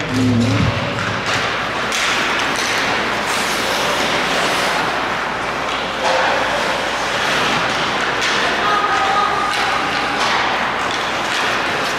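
Ice hockey play in an arena: skates scraping the ice and scattered knocks and thuds of sticks and puck, over an echoing hiss from the rink. Music over the arena speakers cuts off just after the start.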